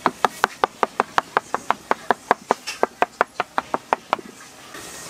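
Rapid, evenly spaced knocks of a hard tool striking a work surface, about five a second, stopping about four seconds in.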